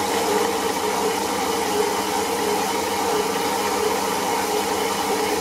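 Metal-cutting bandsaw running steadily with its blade sawing through a thick solid round bar of metal: a constant hiss with a few held tones underneath.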